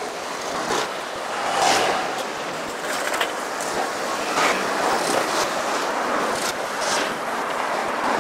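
City street traffic: a steady wash of cars on the road, with a few brief louder swells as vehicles go by.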